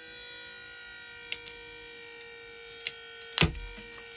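Battery-powered hydraulic pump running with a steady whine as it loads a glued-in stainless eye bolt in a pull test. A few faint ticks come through, then one sharp crack about three and a half seconds in.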